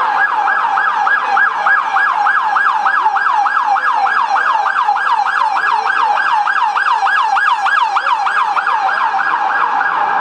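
Loud police vehicle siren in yelp mode: a fast, even rising-and-falling wail of about three sweeps a second. It changes to a different pattern just at the end.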